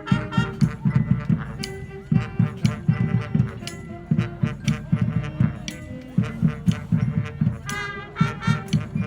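High school marching band playing: brass holding sustained notes over a steady, driving drum beat.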